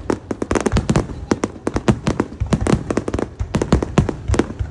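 Fireworks barrage: a rapid, irregular string of shell bursts and crackling, many bangs a second.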